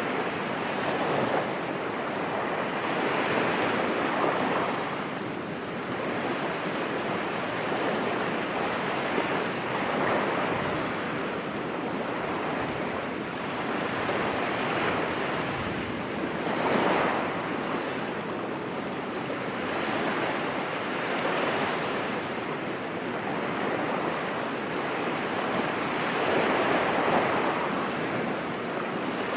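Sea waves breaking and washing on a beach, a continuous surf rush that swells every few seconds, strongest about two-thirds of the way through, with wind on the microphone.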